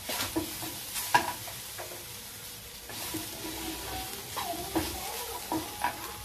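A wooden spatula stirring and scraping spiny gourd (kakora) and onions in a non-stick kadai. Irregular scrapes and knocks sound over a steady sizzle of the vegetables frying in oil.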